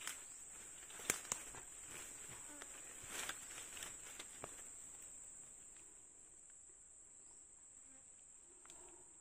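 Steady high-pitched drone of insects, with a few sharp clicks and short rustles in the first few seconds.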